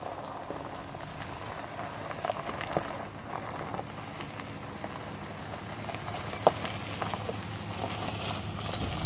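Jeep Grand Cherokee WJ crawling over rough trail, its engine a low steady hum under the crackle of tyres crunching over gravel and rocks. There is a sharp knock of a stone a little past the middle.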